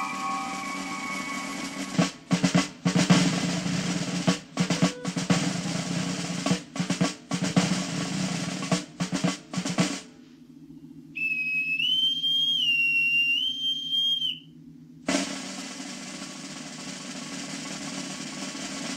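Snare drums beating ruffles in short rolls, then stopping for a boatswain's pipe call: a high, piercing whistle that steps up and down between two pitches for about four seconds. The drum rolls start again after the call, as naval honours for a dignitary coming aboard.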